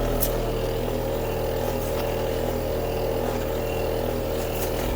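American Standard inverter compressor running with a steady, even hum of several held tones, with a few faint ticks over it.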